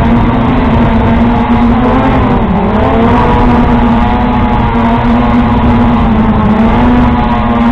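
Quadcopter drone's motors and propellers running with a steady loud whine, heard up close through its own onboard camera; the pitch dips briefly about two and a half seconds in as the motors slow, then comes back up.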